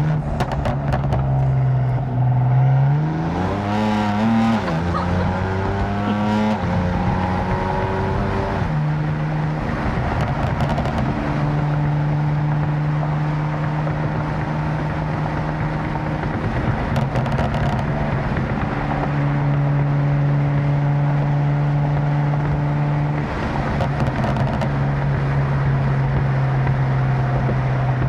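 Tuned 750 hp BMW M4's twin-turbo straight-six engine heard with the windows down: it revs up twice in the first several seconds, then runs at steady cruising revs. Short bursts of exhaust pops and crackles come at several points, where the revs drop off.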